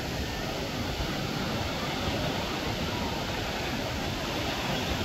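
Sea surf: shallow waves breaking and washing around, a steady rushing noise.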